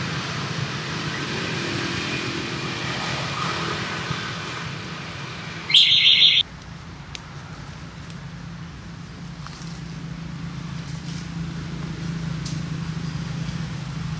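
Steady low hum of distant motor traffic. About six seconds in, a loud, high-pitched squeal lasts about half a second.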